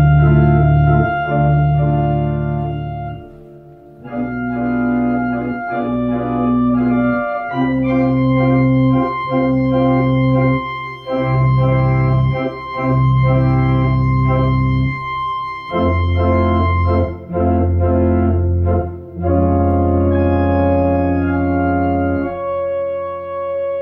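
Two-manual home electronic organ playing sustained chords over held bass notes, the chords changing every second or two. The sound drops away briefly about three seconds in, then the chords resume.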